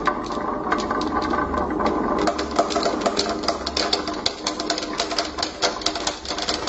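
Many marbles rolling and clicking down a marble run track: a continuous rolling rattle with a dense, irregular patter of clicks as they knock against each other and the track.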